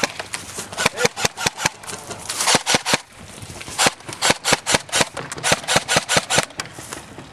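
Running footsteps in quick, even thuds of about four a second, with rustling of clothing and gear.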